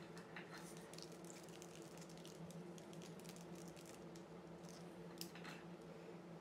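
Near silence: a low steady hum under faint rustles and small ticks of hair being handled and wound on a curling iron.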